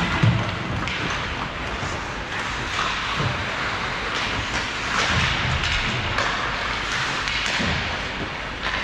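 Hockey game play: a steady hiss with scattered thuds, the loudest about a quarter-second in.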